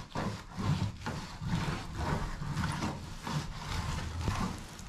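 Long butcher knife sawing back and forth under the sinew of a moose back strap, the blade rubbing and scraping on the metal work table in repeated strokes, about two a second.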